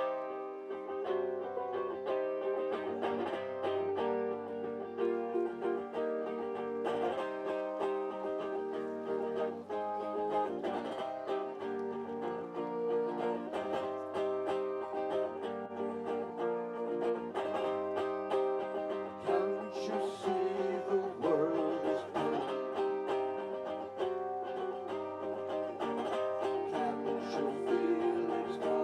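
Guitar strummed in a steady rhythm, playing a song's instrumental part without singing.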